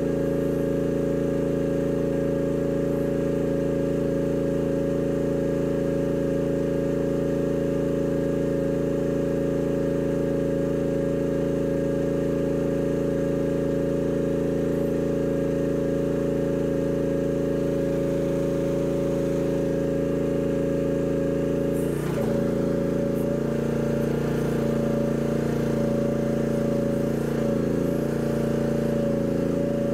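Mini excavator engine running steadily. About two-thirds of the way through there is a brief clatter, after which the engine's note changes slightly, as if under a change of load.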